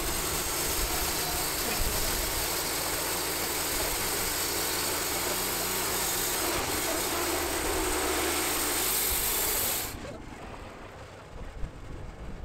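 Wood-Mizer portable band sawmill sawing through an oak log: its engine running under load with the hiss of the band blade cutting the wood. The noise drops off suddenly about ten seconds in, as the cut finishes.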